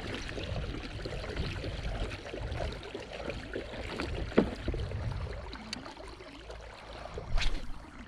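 Water sloshing and trickling around a small kayak, with a sharp knock about four seconds in and another near the end.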